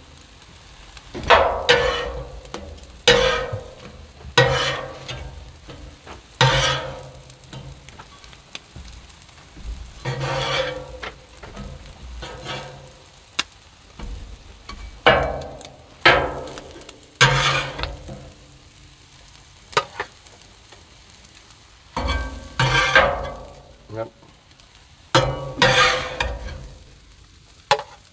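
Metal spatulas scraping and clanking on the steel top of a Blackstone griddle, a dozen or so sharp strokes each with a short ring, over a low sizzle of food cooking on the hot griddle.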